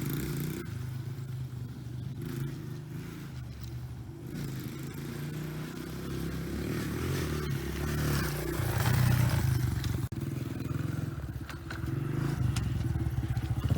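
Dirt bike engine running, the revs rising and falling, louder about eight seconds in.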